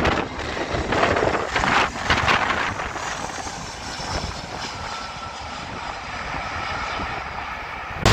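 Jet engines of a Vueling Airbus A320-family airliner on final approach, passing overhead. They give a steady rush with a faint high engine whine from about three seconds in. Wind buffets the microphone in gusts during the first couple of seconds.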